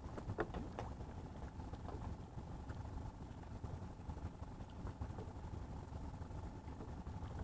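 Boat engine running steadily: a low drone with a faint, steady higher tone over it. A couple of faint clicks come about half a second in.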